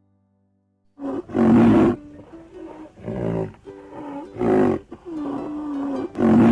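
A big cat roaring: four loud roars, the first and longest starting about a second in, with music playing between them.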